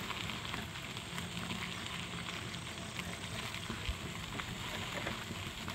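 Steady outdoor background noise with a faint, fine crackling hiss and a soft low thump about four seconds in.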